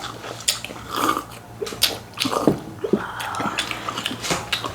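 People eating close to the microphone: wet chewing and mouth sounds with many short sharp clicks.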